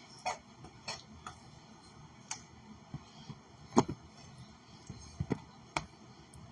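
Roasted chickpeas and spiced nuts being moved into a container, giving small, irregular clicks and taps, with one louder knock a bit under four seconds in.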